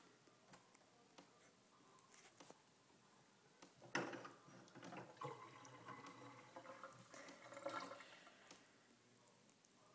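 Bathtub tap running briefly, water splashing into the tub for about four seconds after a sudden start, with a few faint drips before it.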